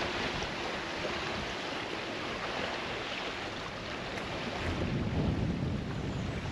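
Steady rushing outdoor noise, with wind buffeting the microphone in low rumbles from about five seconds in.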